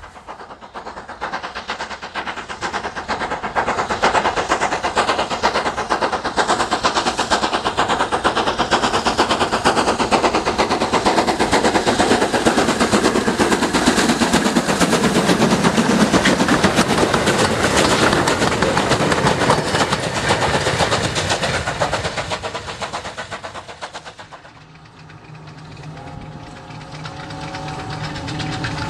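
BR Standard Class 5 steam locomotive No.73096 working a train past, with rapid exhaust beats over the rumble of the train. About 24 seconds in the sound cuts away to a much quieter faint steady hum.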